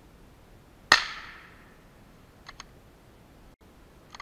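A single shot from a .22 LR bolt-action rifle (Savage Mark II F), a sharp crack about a second in that dies away over roughly half a second, followed by a few faint clicks. It is a follow-up shot at a squirrel that was still alive.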